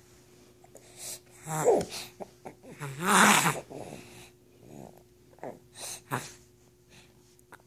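A sleeper snoring: a short pitched snore about one and a half seconds in, a louder, longer snore about three seconds in, then a few softer breaths.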